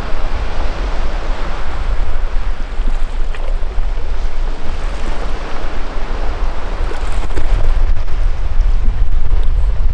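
Sea surf washing against a rocky shore, with wind buffeting the microphone as a steady low rumble that grows stronger near the end.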